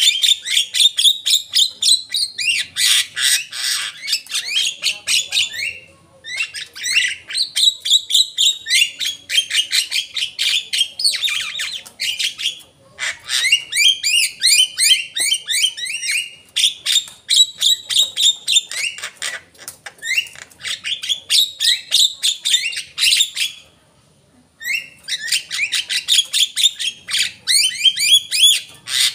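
Javan myna singing in long, loud phrases of fast chattering and squawking notes, with a few short pauses between phrases.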